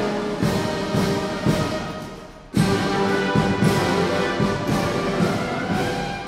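Uniformed brass marching band playing on the march: brass and sousaphones over a regular bass-drum beat. The music falls away about two seconds in, and the full band comes back in abruptly half a second later.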